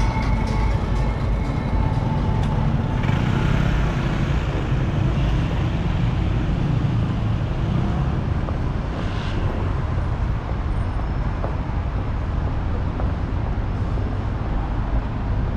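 Steady road-traffic noise from cars passing on a busy city road, a continuous low rumble with no single vehicle standing out.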